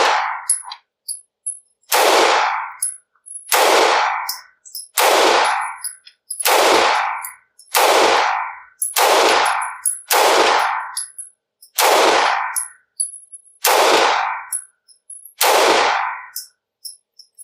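Taurus TH9C 9mm compact pistol firing slow, aimed single shots, about ten in all, one roughly every second and a half, each with a short ringing tail.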